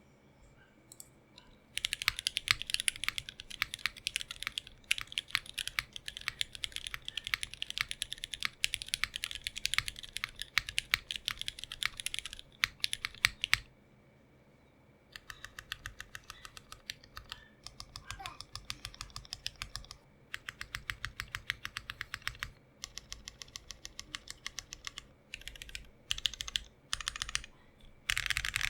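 Typing on a Geonworks Frog Mini 60% mechanical keyboard with lubed and filmed retooled Cherry MX Black linear switches, an aluminium plate and GMK ABS keycaps. About two seconds in comes a long run of fast, continuous keystrokes. After a pause of about a second and a half, slower, separate bursts of keystrokes follow, with short gaps between them.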